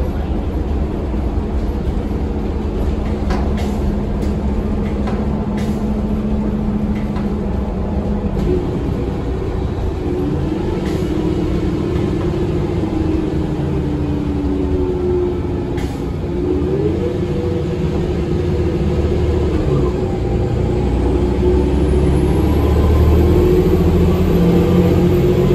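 Cabin noise of a 2022 Eldorado National Axess transit bus under way: a steady low rumble with a drivetrain whine that shifts in pitch and a few short rattles. Near the end a whine rises in pitch and the noise grows a little louder.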